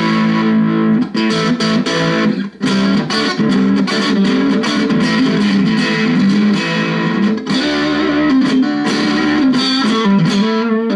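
Electric guitar, a Stratocaster fitted with Bill Lawrence hand-wound noiseless pickups, played through an amplifier: a continuous passage of chords and single notes, with a short break about two and a half seconds in.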